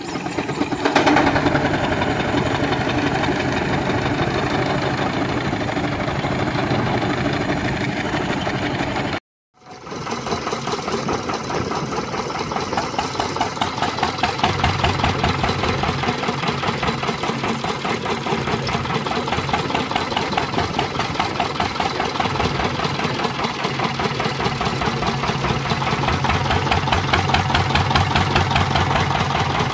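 A steam traction engine running, then, after a brief silent gap, a vertical single-cylinder stationary gas engine running with a fast, even beat.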